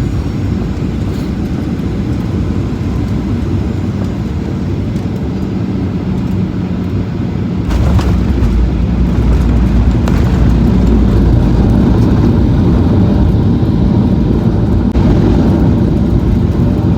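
Airliner landing: a steady rumble of engines and air, then about eight seconds in a sudden jolt, after which a louder, deeper rumble goes on, which fits the wheels touching down and the plane rolling out on the runway.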